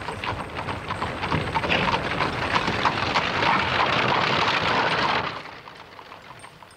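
A dense clatter of quick knocks over a noisy hiss, rising in level and then cutting off suddenly about five seconds in.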